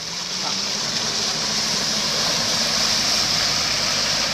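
Off-road 4x4 engine running steadily under load while the vehicle ploughs through deep mud and water, with a continuous rushing splash over the engine hum; it grows gradually louder.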